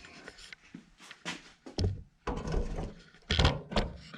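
Several clunks and knocks of metal car-body parts being worked loose by hand, the loudest about three and a half seconds in.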